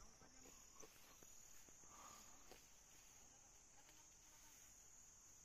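Near silence with a faint, steady, high-pitched chirring of crickets.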